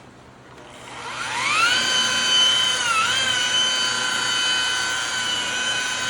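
Makita high-speed rotary buffer with a wool pad winding up with a rising whine about a second in, then running steadily while buffing a headlight lens with heavy cutting cream; its pitch dips briefly about three seconds in before settling again.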